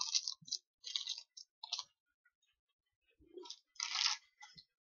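Crunchy strawberry-coated biscuit stick being bitten and chewed: a few short crisp crackles, then a louder crunch near the end.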